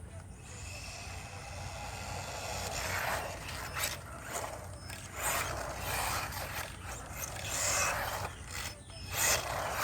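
Haiboxing 18859A RC truck's electric motor and gears whirring during high-speed passes, swelling and fading several times as it speeds up and goes by.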